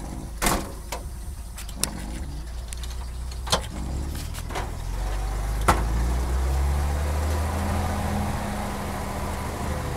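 The 251 flathead six of a 1951 Chrysler M37 army truck running under way on a rough dirt track, heard from inside the cab. The engine drone grows louder and fuller about halfway through, and several sharp knocks come in the first half.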